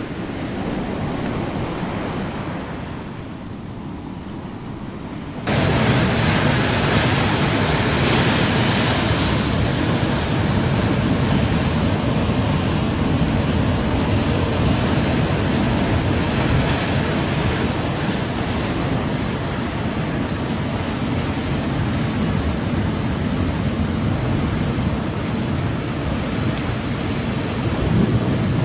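Steady rush of sea surf and wind on the microphone, starting suddenly about five seconds in. Before it there is a quieter steady hiss.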